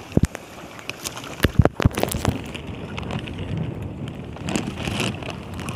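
Water splashing and lapping around a small fishing boat, with several sharp knocks and taps in the first couple of seconds and wind on the microphone.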